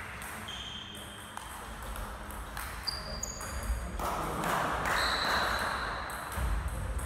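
Table tennis rally: a few sharp clicks of the ball off bats and table, with short high pings, in a large gym hall.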